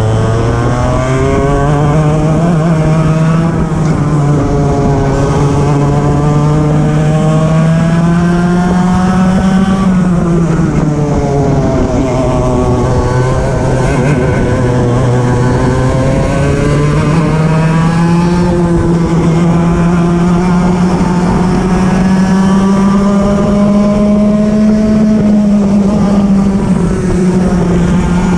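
Racing kart engine at full race pace, heard from on board the kart: the revs climb along the straights and drop away for the corners, with a marked dip about ten seconds in.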